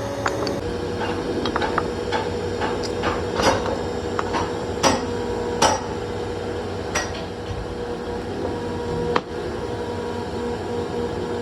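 Steady hum of workshop machinery with a held tone, and irregular sharp metallic knocks over it, like metal parts being struck or knocked together, the loudest near the middle.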